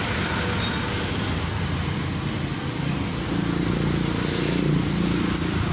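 Steady running noise of motor vehicles, like road traffic, with a low engine hum that grows a little louder about three seconds in.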